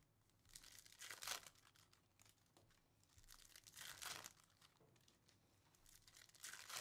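Faint tearing and crinkling of foil trading-card pack wrappers being ripped open, in three short rips: about one second in, about four seconds in, and near the end.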